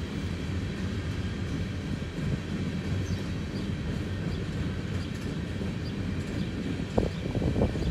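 Empty coal hopper cars of a freight train rolling past: a steady low rumble of steel wheels on rail, with a quick cluster of louder clanks near the end.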